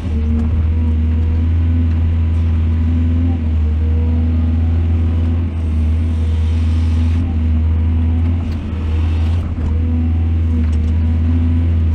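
Heavy diesel engine of earthmoving machinery running steadily with a deep, even hum, and a short hissing rush about six seconds in that lasts over a second.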